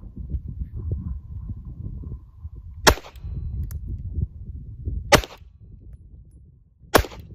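Three 9mm pistol shots from a Glock 19, fired one at a time about two seconds apart, over low wind rumble on the microphone.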